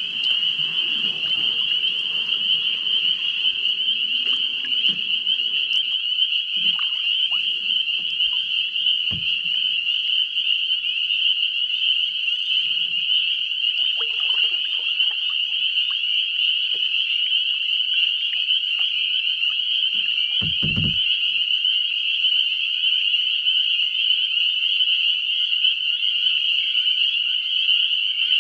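Dense chorus of pond frogs calling in spring, a steady high-pitched trilling that never breaks. A few low knocks sound under it, the clearest about three-quarters of the way through.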